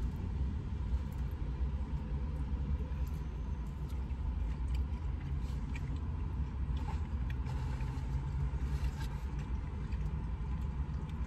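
Steady low rumble inside a parked car, with faint scattered clicks and taps of plastic forks and a plastic food tray being handled.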